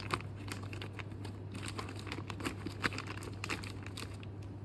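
Handling noise from a chainsaw chain being picked over: light crinkling and many small irregular clicks, over a steady low hum.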